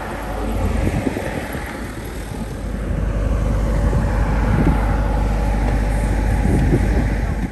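Wind buffeting the microphone: a heavy low rumble with a rushing noise, growing louder about halfway through.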